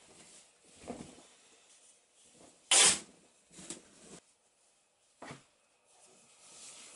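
A large piece of fabric being shaken out and spread on a table: several short swishes and rustles of cloth, the loudest a sharp flap about three seconds in.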